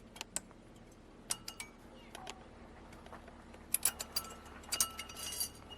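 Metal clicks and clinks of thin brake-pad anti-rattle clips being pulled out of a disc brake caliper bracket: scattered sharp ticks with a brief ringing, coming thicker in a cluster in the last couple of seconds.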